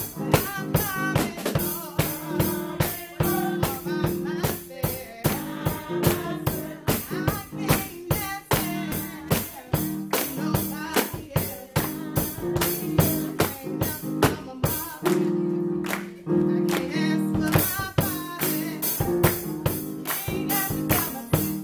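Church gospel music: a woman singing into a microphone over a steady drum-kit beat of about three strikes a second and sustained chords.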